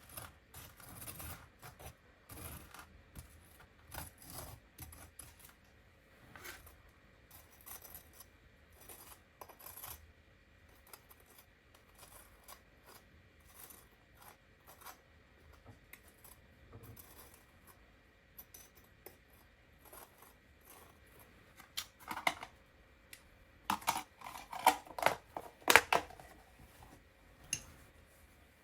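Kitchenware being handled: a run of light taps and clicks, then several louder ringing clinks of hard dishes or utensils near the end.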